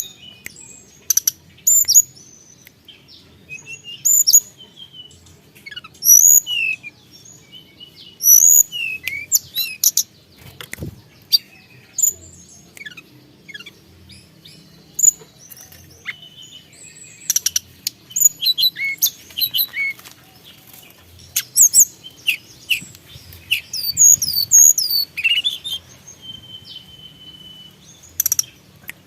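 Tledekan gunung (hill blue flycatcher) singing energetically: phrase after phrase of short, high whistles and chirps with quick up-and-down pitch slides, separated by brief pauses.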